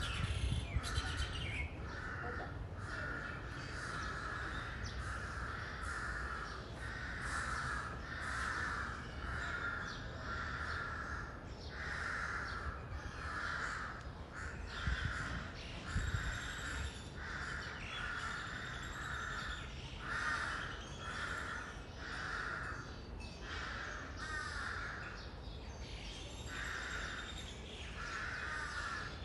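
Crows cawing over and over, about one or two harsh calls a second without a break, with a few higher bird chirps and a low rumble underneath.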